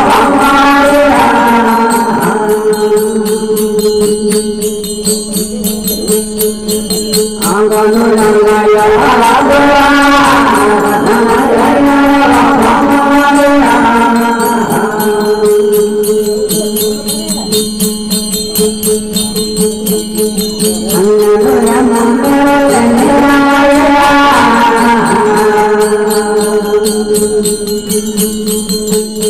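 Rajasthani desi bhajan (devotional folk song) music: a steady drone under fast, even jingling percussion, with a wavering melody coming in twice, about 8 and 21 seconds in.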